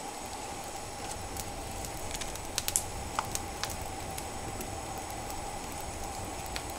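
Steady hiss of a lit camping lantern, with scattered small clicks and taps, most of them in the middle, as cups are set down on a wooden table.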